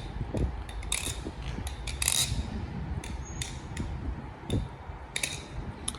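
Baliplus Tsunami clone balisong being handled and flipped: irregular metallic clicks and clacks of the handles and blade knocking together at the pivots, the loudest about one and two seconds in.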